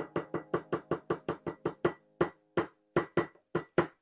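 A utensil tapping against a small stainless-steel container to knock out the last of the icing, each tap leaving a short metallic ring. The taps come about five or six a second, then slow to an uneven two or three a second about halfway through.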